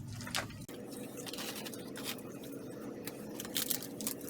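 Plastic food packaging handled and crinkled, with irregular crackles and clicks that are thickest near the end, over a faint steady hum.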